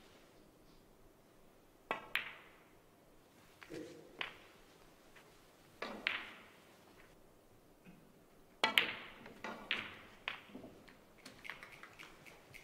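Snooker balls clicking as a red and then the black are potted: the cue tip striking the cue ball and the cue ball striking object balls, sharp knocks a couple of seconds apart with short ringing tails, the loudest about nine seconds in.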